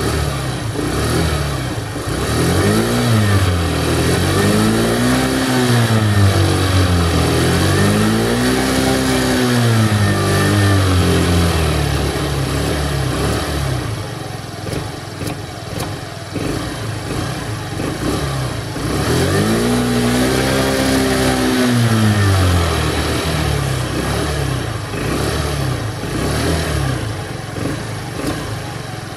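Stock, brand-new Honda NSC 50 R scooter's 49 cc four-stroke single-cylinder engine, heard at the exhaust silencer, being revved with the throttle while standing still. It gives several blips that rise and fall in the first part, settles to a steady idle, is revved once more a little past the middle, and drops back to idle.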